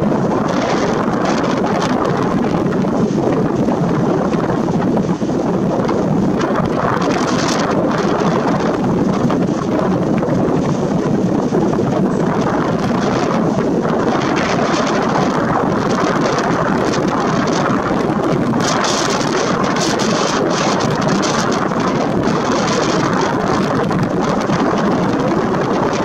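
Strong wind blowing across the microphone: a loud, steady rushing noise, with brief hissier gusts now and then.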